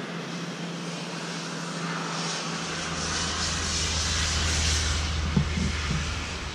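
A passing vehicle: a low rumble and rushing noise that builds over a couple of seconds, is loudest about two-thirds of the way through, then begins to fade.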